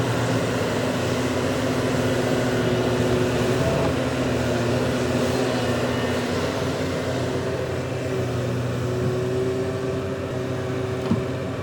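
Heavy earthmoving diesel engine running steadily at a constant speed, with a light knock near the end.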